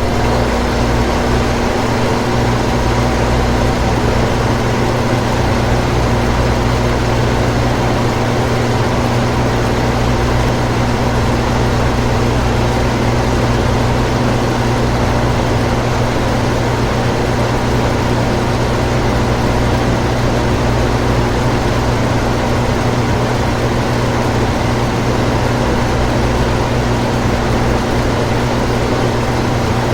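Air conditioner running: a steady, constant hum with several fixed tones over an even rush of airflow.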